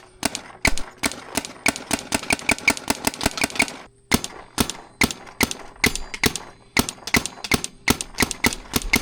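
Planet Eclipse EMEK paintball marker firing quick strings of shots, about five or six a second, with a short pause about four seconds in.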